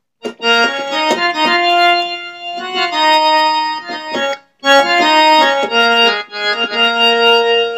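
Harmonium playing a slow melodic phrase of held, reedy notes. There is a short break about halfway through before the phrase goes on.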